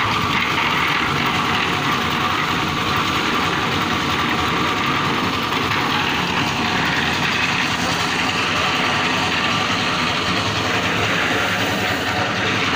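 Small stationary engine of a portable concrete mixer running steadily.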